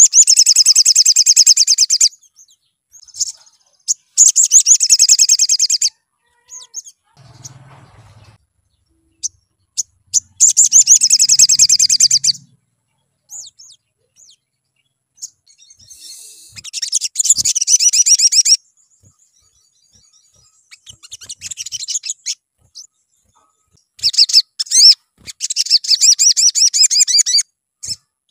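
Sunbird (sogon) singing: five bursts of loud, very high-pitched, rapid chattering trills, each about two to three seconds long, with short single chirps in the gaps.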